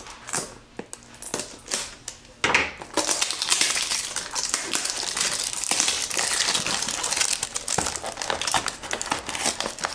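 Packaging of a small cardboard blind box being opened by hand: scattered light clicks and rustles at first, then continuous crinkling from about three seconds in.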